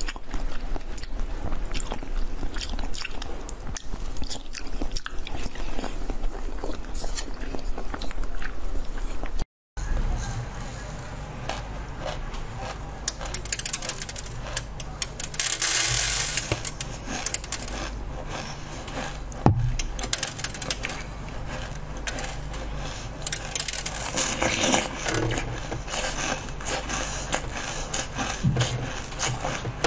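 Close-miked jelly eating: soft bites, wet chewing, squelches and mouth clicks. The sound drops out briefly about a third of the way in, then comes a stretch of slurping jelly from a bottle, followed by more biting and chewing of soft jelly.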